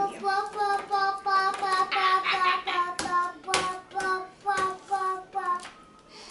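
A young child's voice repeating one syllable over and over on a single steady pitch, about two to three times a second, like a sing-song chant, with a few sharp taps in the middle.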